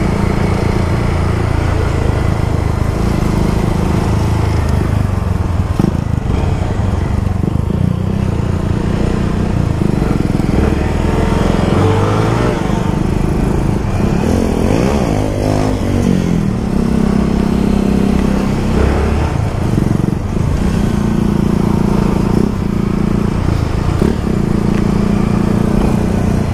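A 150 cc motorcycle engine running under way, its pitch stepping up and down with throttle and gear changes. About halfway through, an engine pitch rises and falls in a curve.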